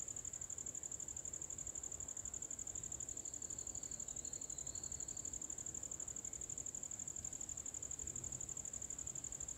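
An insect trilling steadily: a continuous high-pitched chirp made of rapid, even pulses.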